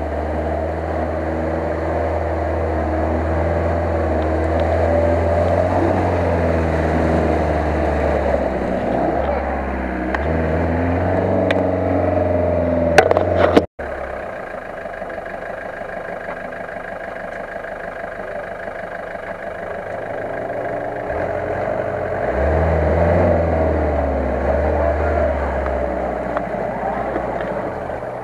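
Off-road 4x4's engine revving hard and labouring through deep mud, its pitch rising and falling as the driver works the throttle. A couple of sharp knocks come about halfway through, and the engine swells again near the end.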